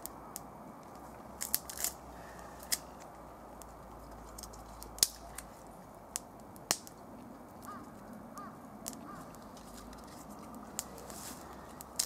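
Kindling sticks snapping and clattering as they are handled and laid onto a small, newly lit campfire. The sharp snaps come one at a time, with several close together in the first two seconds and others at about five and about seven seconds in.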